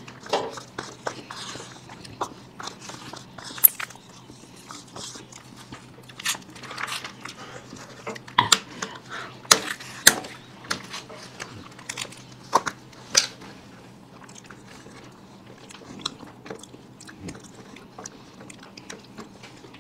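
Close-up eating sounds of people eating ice cream: biting and crunching of wafer cones, with wrapper crinkling and a spoon against a cup, heard as sharp scattered clicks and crackles that are busiest in the middle. A faint steady low hum runs underneath.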